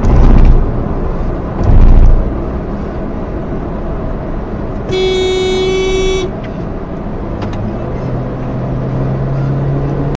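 Road and engine rumble inside a moving car, with two heavy low thumps in the first two seconds. About five seconds in, a car horn gives one steady warning honk held for just over a second.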